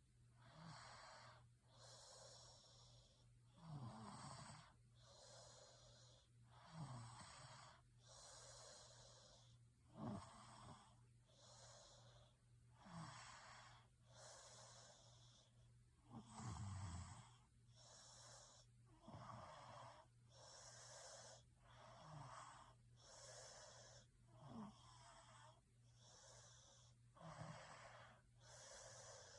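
Faint, steady snoring of a sleeping person: airy in-and-out breaths, with a short low snore that drops in pitch about every three seconds.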